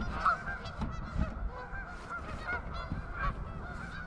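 A large flock of geese honking: many short calls overlapping into a continuous chorus.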